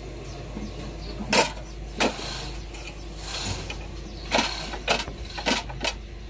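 About six sharp metallic knocks and clicks of tools and engine parts being handled during an engine rebuild, the loudest about a second and a half in. Under them runs a steady low background rumble.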